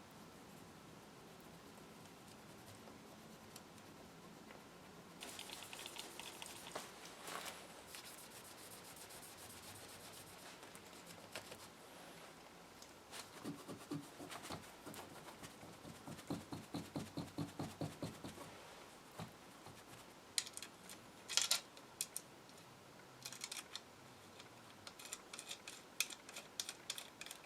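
Hand rubbing and scrubbing on small metal radio parts during cleaning. There is a spell of scraping, then a run of quick back-and-forth strokes at about four a second, then scattered light clicks and taps near the end.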